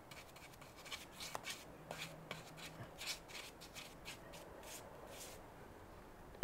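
Paintbrush strokes on plywood, soft scratchy swishes about once or twice a second, ending with a sharp tap as the brush goes back to the paint tin.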